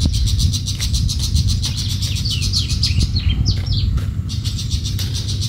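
Songbird calling in quick runs of short falling high notes, twice in the middle, over a fast, even, high-pitched pulsing and a steady low rumble.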